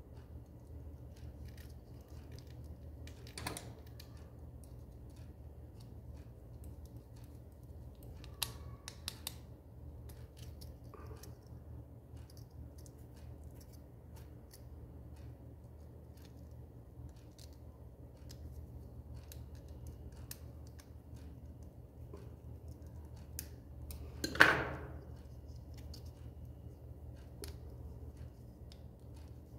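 Small clicks and handling noises of a plastic hanging plug and electrical cord being worked by hand, over a low steady hum. One louder, brief snap comes about three-quarters of the way through.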